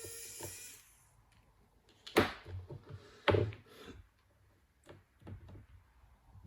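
A small electric screwdriver's motor whirs steadily and stops about a second in, followed by sharp clicks and knocks of the laptop's plastic parts being handled, the two loudest about two and three seconds in.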